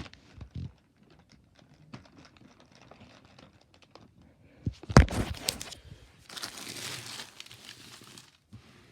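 Gift-bag wrapping being handled, crinkling and rustling, with scattered small clicks. There is a loud crackle about five seconds in, then a longer rustle of about two seconds.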